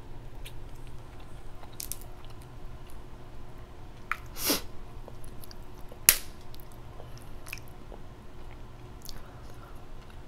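Close-up eating sounds of crab legs: chewing with small crunches and clicks of shell. There is a short rushing sound about four and a half seconds in, and a sharp crack about six seconds in is the loudest.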